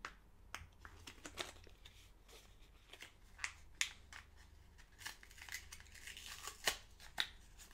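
Faint handling noise: scattered light clicks and brief rustles as small guitar hardware, a control knob, is handled.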